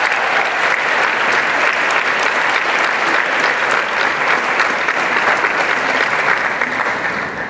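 Audience applauding: dense, steady clapping from a full room that tapers off near the end.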